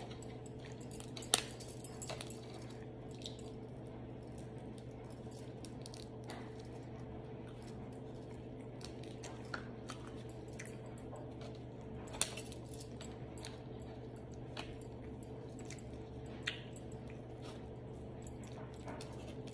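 Cooked crab leg shells cracking and snapping under gloved hands, giving scattered sharp clicks; the loudest snaps come about a second in and again about twelve seconds in. A steady low electrical hum runs underneath.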